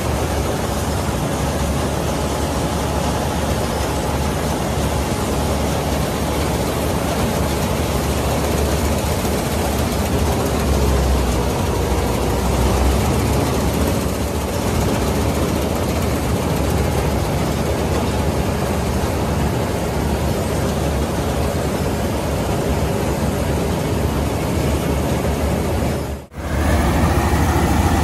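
Combine harvester running steadily under load while it cuts and threshes ripe paddy, its engine and machinery heard from on board. Near the end the sound drops out for a moment and comes back as a different, wavering engine note.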